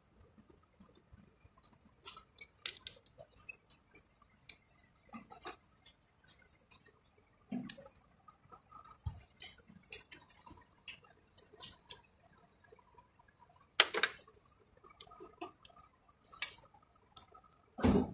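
Scattered small clicks and ticks of hand work on an alternator's carbon-brush holder and brush lead held in a bench vise, with a sharper knock about 14 seconds in and another near the end.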